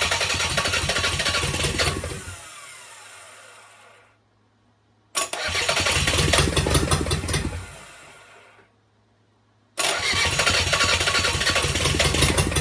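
Freshly rebuilt Kubota V2203 four-cylinder diesel cranked over in three bursts of about three seconds each, trying to fire after its injector lines were bled. After each burst it winds down and stops without staying running.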